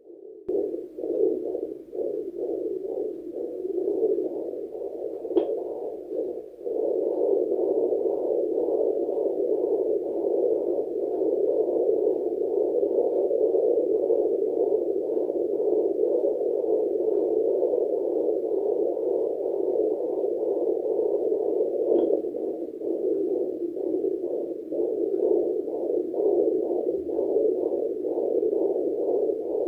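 Fetal Doppler's speaker giving out a pulsing heartbeat signal over a steady hiss, with a couple of sharp clicks.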